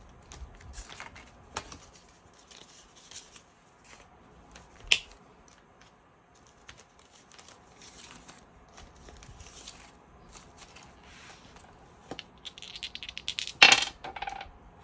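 Paper banknotes rustling as they are handled and tucked into a binder envelope, with a few sharp clicks. Near the end two dice rattle in quick ticks and clatter onto a hard tabletop.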